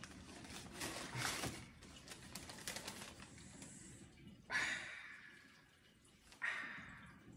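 Tissue paper rustling and crinkling as a leather sneaker is unwrapped in its cardboard box and lifted out, with two short, louder hissing sounds partway through.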